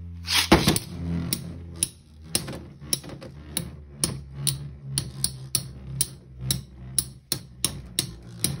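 Two Beyblade X spinning tops clashing in a plastic stadium. After a loud hit about half a second in, their metal blades strike each other again and again in sharp clacks, about three a second, over a low steady hum.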